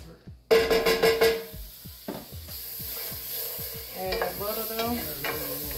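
Butter hitting a hot skillet: a sudden loud sizzle about half a second in that settles into a steady sizzle as the butter melts, with a wooden spoon stirring in the pan.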